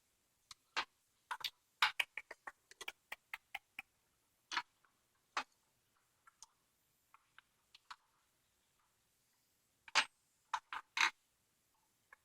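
Sharp small metal clicks and taps from a padlock being worked by hand while the core's retaining clip is taken off, with the key following. They come irregularly, with a quick run of clicks about two seconds in and another cluster near the end.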